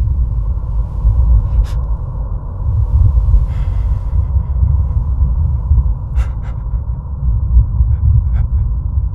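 Steady low rumble of a moving bus, heard from inside. There is a breath about three and a half seconds in, and a few sharp clicks: one early, a close pair a little after six seconds, and one near the end.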